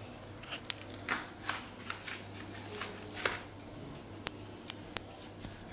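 Soft rustles and light taps of hands, clothing and bare feet against a yoga mat during a massage stretch, coming in short scattered bursts, with a few sharp clicks and a faint steady hum underneath.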